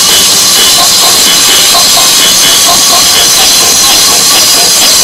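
Miniteca mobile sound system with twelve bass cabinets playing electronic music at full volume. The sound is so loud that the recording is saturated into a dense, distorted wash.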